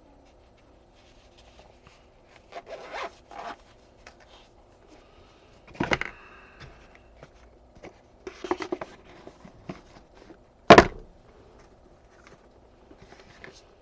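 Handling noise from a knife and its pouch: rustling and rubbing in short spells, with a sharp click about a second in from the six-second mark and a louder, sharper click near eleven seconds in.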